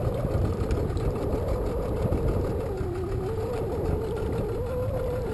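Small boat motor running slowly and steadily, its pitch wavering slightly and dipping about three seconds in, over a low rumble.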